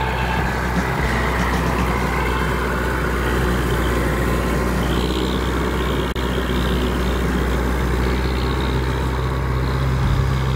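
Farm tractor's diesel engine running steadily under load as it pulls a seed drill across a worked field, passing close by.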